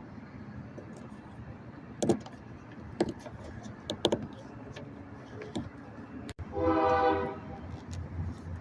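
Vehicle engine idling with a steady low rumble while the newly replaced power steering lines are checked for leaks. A few sharp knocks come in the first half, and a brief loud pitched tone, under a second long, sounds about seven seconds in.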